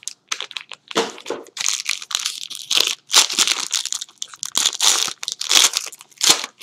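Trading-card packaging being handled and opened: plastic or foil wrapping crinkling and tearing in a run of short, irregular rustles.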